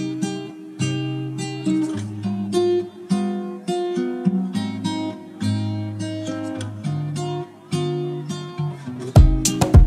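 Background music: an acoustic guitar playing plucked and strummed chords, with drum hits coming in near the end.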